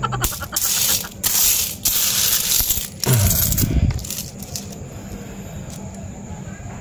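Metal coins clinking and jingling as they are handled, in several bursts over the first three seconds, followed about three seconds in by a short low sound that falls in pitch.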